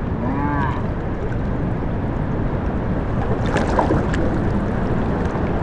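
Shallow river water rushing steadily around a kneeling angler's hands, with a few small splashes about three and a half seconds in as a steelhead is released and kicks away.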